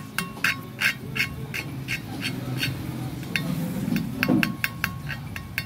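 Exhaust valve being lapped into its seat on a Honda CBR600 F2 cylinder head with a lapping stick and grinding paste: quick metallic taps of the valve against the seat, about three a second, some with a short ring, done to check that the valve seats all the way round.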